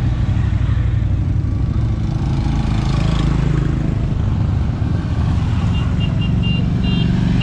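Motorcycle engines running as the bikes ride past, a continuous engine sound whose pitch wavers as they go by. A series of short high beeps sounds near the end.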